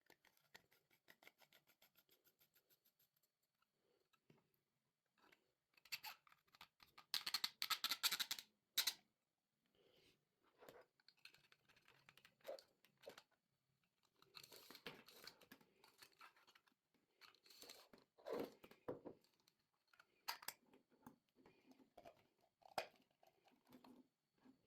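Faint handling noises: rustling, crinkling and tearing, loudest about six to nine seconds in. A rapid, regular ticking runs through the first three seconds or so, and scattered light clicks and rustles follow.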